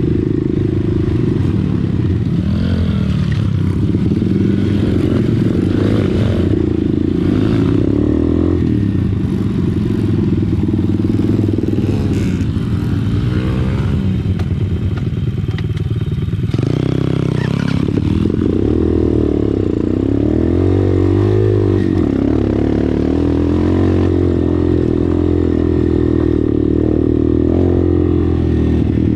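Dirt bike engine running under way on a rough trail, its revs rising and falling continually with throttle and gear changes.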